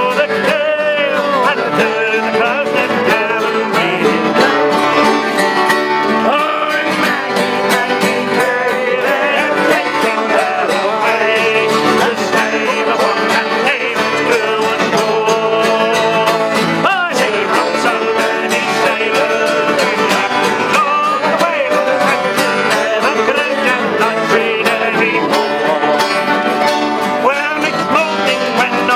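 Live sea shanty band playing: strummed acoustic guitars, a mandolin and a button accordion, with men singing together.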